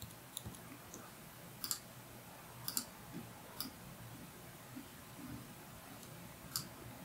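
A handful of faint, irregularly spaced clicks of a computer mouse, about five over several seconds, against low room tone.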